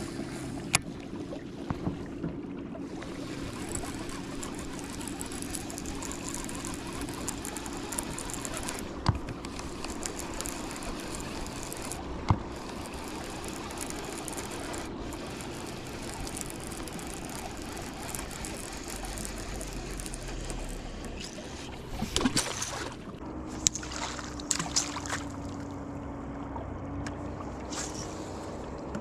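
Electric trolling motor, a MotorGuide Xi3, running with a steady hum that shifts pitch about two-thirds of the way through, over water lapping and trickling against a kayak hull, with a few sharp knocks.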